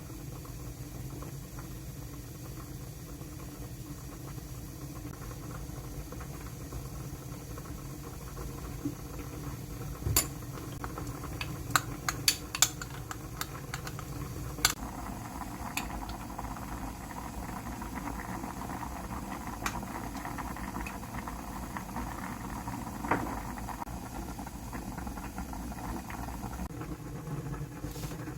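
Kitchen sounds: a steady low hum with a few sharp clinks of dishes and utensils, a quick cluster of them about twelve seconds in. About halfway through, a soft hiss joins the hum.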